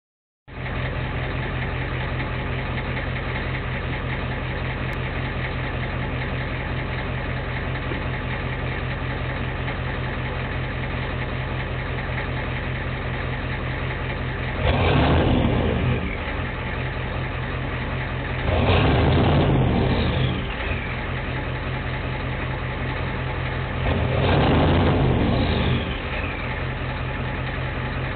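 A 1992 Ford F-250's 7.3-litre IDI V8 diesel, fitted with an ATS turbo and a 4-inch straight-pipe exhaust, is heard at the tailpipe idling high while not yet fully warmed up. Three short revs come about halfway through, about two-thirds through and near the end. Each is followed by a falling whistle as the turbo spins down.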